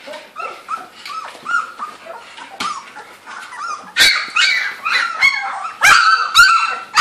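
A litter of two-to-three-week-old Labrador Retriever puppies yipping, squeaking and whining, many short high-pitched calls in quick succession, as they first learn to use their voices. The calls grow much louder about halfway through.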